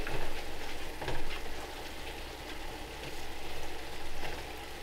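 Ground beef sizzling as it browns in a frying pan, with a few soft scrapes of a spoon stirring.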